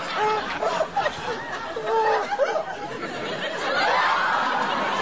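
A woman's overwhelmed, tearful laughter in short high-pitched squeals and gasps, over the murmur of a studio audience.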